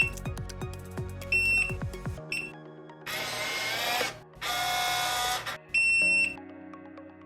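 Electronic deadbolt lock powering up on fresh batteries: a beep, a short chirp, then its motor whirring twice for about a second each as it drives the bolt, and a final beep. Background music plays throughout.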